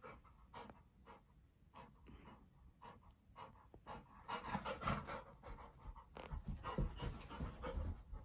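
Golden retriever panting, short breaths about twice a second at first, then louder and busier from about four seconds in, with low thumps as the dog moves.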